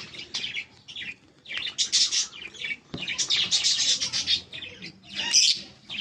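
Caged aviary birds chirping and squawking: many short, high, quick calls, one after another, with a single sharp knock about halfway.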